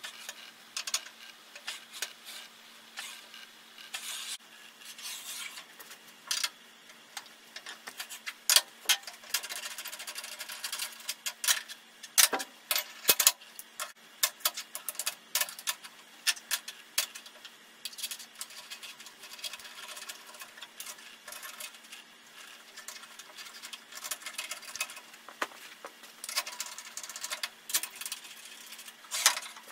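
Metal dial-indicator alignment gauge being handled on a cast-iron table saw top: irregular clicks, clacks and light scrapes as it is set down, slid along the miter slot and its knobs adjusted. A faint steady hum sits under it.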